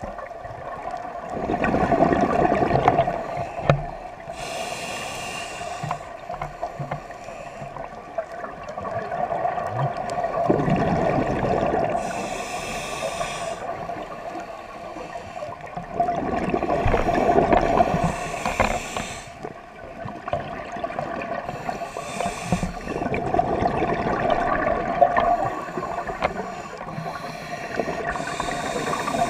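Scuba diver breathing through a regulator underwater: a short hissing inhale, then a longer, louder burble of exhaled bubbles, about five breaths in all, over a steady hum.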